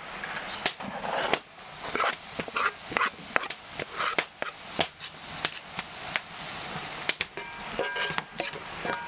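Chopped onion sizzling in oil in a frying pan while julienned carrots are scraped off a wooden board into the pan, with many irregular knocks and clicks of the knife and board over the hiss.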